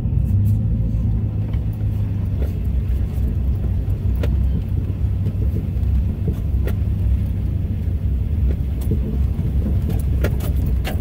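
Chevrolet Silverado pickup driving slowly over a rough, muddy trail, heard from inside the cab: a steady low drone from the truck's engine and running gear, with scattered clicks and rattles as it rolls over bumps.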